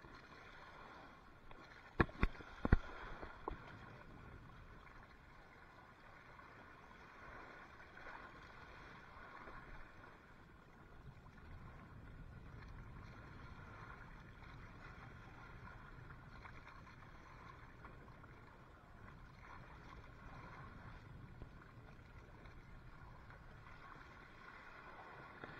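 Sea water sloshing and lapping steadily around a bamboo fish-trap platform, with a few sharp knocks about two to three seconds in.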